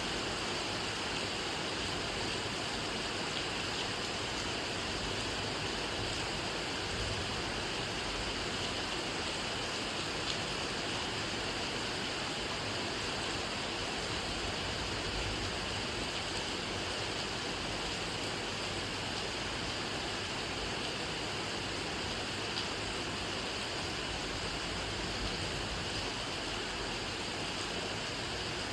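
Steady rain falling, an even hiss with a faint tick of a single drop now and then.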